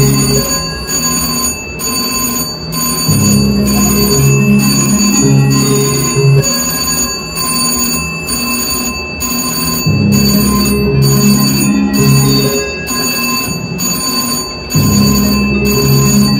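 Slot machine spin sounds: a short electronic jingle of low notes that starts over with each spin, about 3, 10 and 15 seconds in, over steady bell-like electronic tones.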